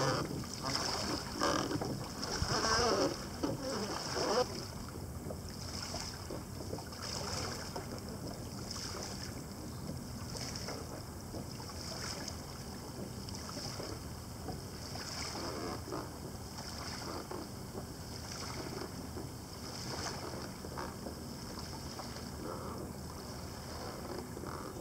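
Water sloshing and splashing around the hull and outrigger floats of a small human-powered boat as it passes close by, louder and uneven for the first four seconds or so. After that comes a fainter, steady wash of water with light wind, soft pulses recurring about once a second.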